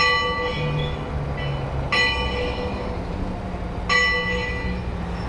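A bell struck about every two seconds, each ring starting sharply and dying away, over a steady low engine hum.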